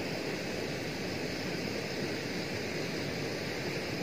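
Steady rushing of water at a dam, an even, unbroken noise.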